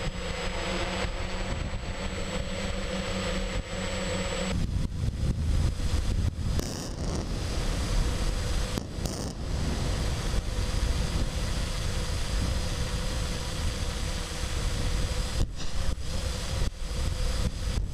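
Camera drone's motors and propellers whirring steadily in flight over a low rumble. About four and a half seconds in, the high whine drops away and the low rumble grows stronger.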